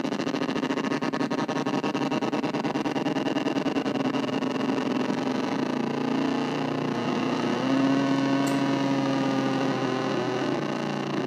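Casper Electronics Nova Drone analog drone synthesizer playing a distorted noise drone: a dense stack of steady buzzing tones with a fast fluttering pulse. About two-thirds of the way through, a new steady low tone settles in over the texture.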